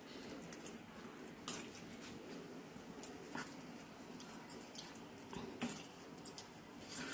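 Metal spoon mixing a thick ground masala paste into marinated mutton pieces in a steel bowl: faint wet squelching with a few light clicks of the spoon against the bowl.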